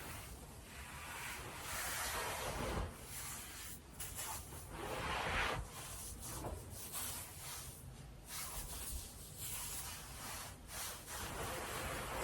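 Nylon stockings rubbing and sliding against bedding: a string of swishing rubs of uneven length, some brief, some lasting a second or more.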